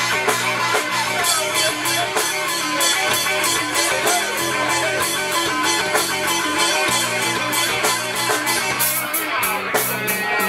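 Live rock band playing an instrumental passage: electric guitars and bass guitar over a drum kit keeping a steady beat, with the cymbals getting louder in the last second or so.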